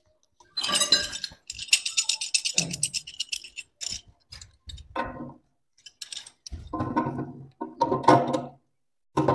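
Clinking and rattling of a wash basin's waste coupling being worked and tightened by hand under the bowl, including a fast run of light clicks. In the second half come a few short pitched sounds.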